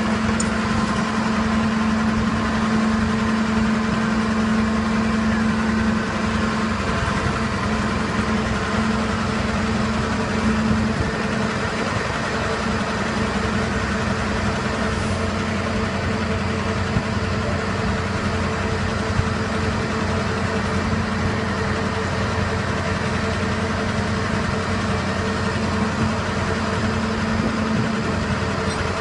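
An engine idling steadily, a continuous droning hum.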